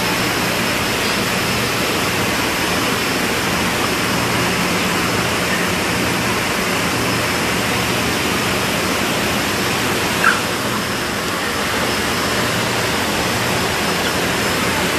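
Steady, loud industrial rushing noise with a low hum and a faint high whine running through it, like the machinery and ventilation of a poultry processing plant. A brief faint chirp about ten seconds in.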